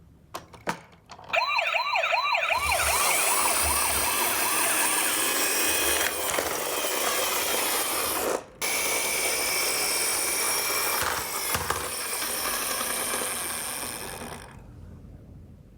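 Toy ambulance sirens from electronic sound modules. After a few clicks, a fast wavering siren starts about a second in and is soon joined by others into a dense jumble of siren tones; it breaks off for a moment just past the middle, then fades out near the end.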